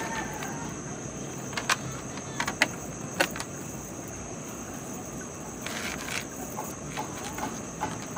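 Steady high drone of crickets and other insects, with a few sharp clicks and knocks scattered through it and a brief soft rush about six seconds in.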